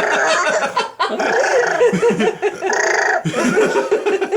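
Baby laughing hard and excitedly in long stretches of high-pitched laughter, breaking off briefly about a second in and again near the end.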